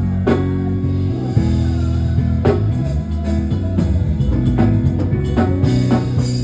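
Instrumental band music: guitar and a bass line over a drum kit.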